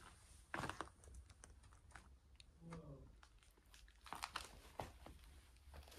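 Faint, scattered crunches and clicks of footsteps on debris and grit, with a few louder steps about half a second in and around four seconds in, and a brief pitched sound near the middle.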